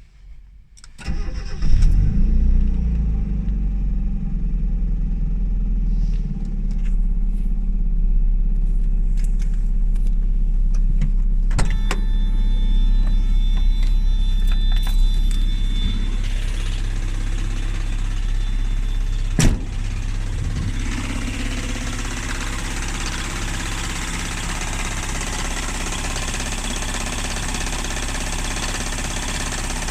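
1994 Mazda Miata's 1.8-litre four-cylinder engine starting about a second in, then idling steadily, which the owner suspects may have a rod knock. A single sharp click about two-thirds of the way through.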